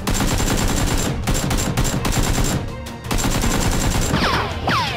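Rapid automatic gunfire in long bursts, a firearm sound effect dubbed over the Nerf blasters being fired, with brief breaks about a second in and near three seconds. Falling whistling glides come in near the end.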